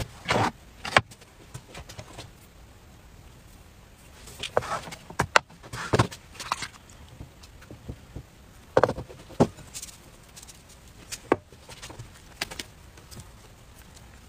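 Food-preparation handling sounds: about a dozen separate taps, knocks and short scrapes, spread irregularly, from thin crepes, a basting brush, a glass jug and bowls being handled over a wooden board.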